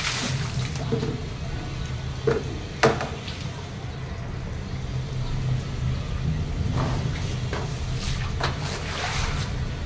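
Water poured from a plastic bucket splashing onto a tiled floor, two sharp knocks about two and three seconds in, then a broom scrubbing the wet tiles in repeated swishes near the end. Music plays faintly in the background.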